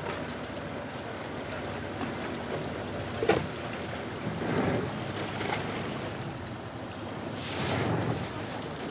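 Sea water washing against a fishing boat's hull, with wind on the microphone; the water noise swells up about halfway through and again near the end, and there is one short knock about three seconds in.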